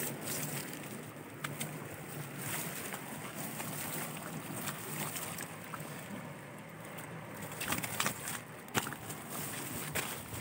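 Steady outdoor wind noise, with a few sharp rustles or knocks about eight seconds in.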